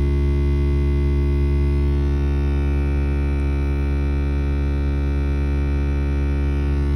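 Steady electrical-sounding hum from behind the glovebox of a BMW E92, like a transformer running, that does not stop; it comes with the car's heater and air conditioning not working. A fainter high whine joins it about two seconds in.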